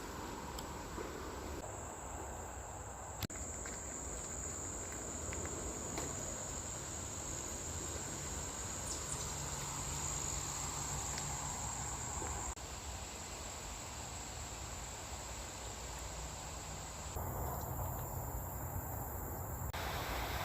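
Insect chorus, crickets, keeping up a continuous high-pitched trill, over a low steady background hum.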